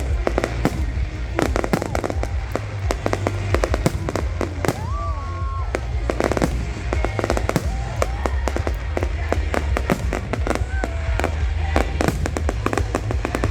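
Fireworks display going off in quick succession: many sharp crackling bursts over a continuous low booming rumble, with scattered rising and falling whistles.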